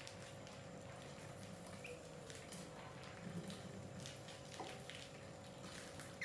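Rats scurrying about: scattered light clicks, scratches and patters of claws on wood and concrete, over a faint steady hum.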